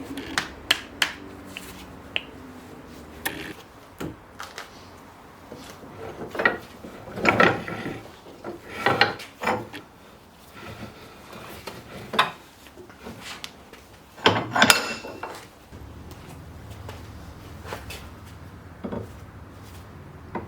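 Irregular metal clinks, knocks and short scrapes of a rusty axe head and hand tools being handled on a wooden workbench, busiest about a third of the way in and again past the middle.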